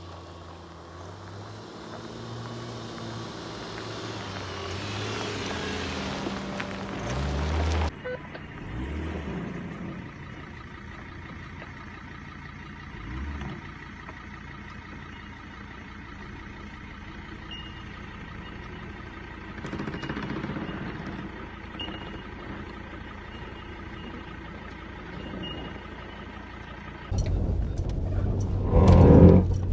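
Lifted Subaru Outback's engine running as it drives on a dirt trail, the note building over the first several seconds. The sound changes abruptly about eight seconds in and again near the end, where it suddenly becomes much louder and rougher.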